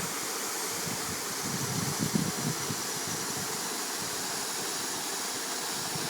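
Mountain wind blowing steadily. A gust buffets the microphone with low rumbles about two seconds in.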